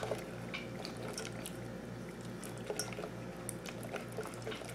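Fingers squishing and working a wet miso and egg-yolk paste in a stainless steel pot: faint, irregular wet clicks and smacks.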